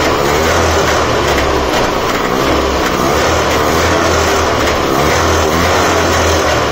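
Trabant 601's two-stroke two-cylinder engine running steadily with the choke off, on a freshly fitted carburetor; it is running nicely.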